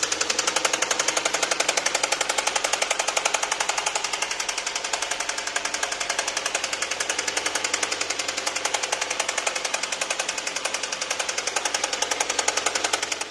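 2021 Hyundai Sonata engine running with a rapid, even knocking that goes on steadily.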